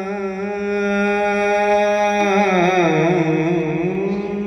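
A voice holding one long sung note, unaccompanied. It wavers and dips slightly in pitch a little after two seconds in, then settles again.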